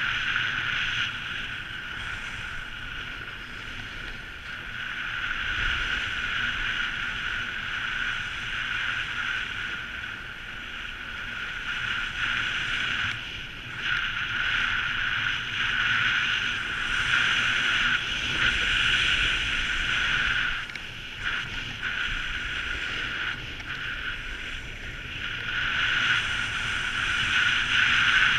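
Snowboard sliding and carving over groomed snow: a continuous hissing scrape that swells and fades with the turns, with some wind rumble on the microphone.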